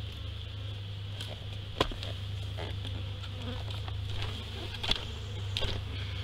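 Honey bees buzzing steadily around an opened hive, with three sharp knocks as the wooden hive boxes are handled.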